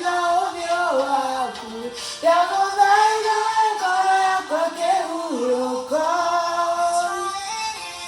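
A song playing: a sung vocal line held over musical backing, in long, sliding phrases.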